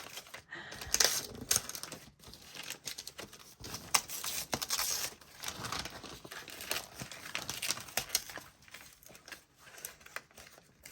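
Gift wrapping being unwrapped by hand: irregular crinkling and rustling with some tearing.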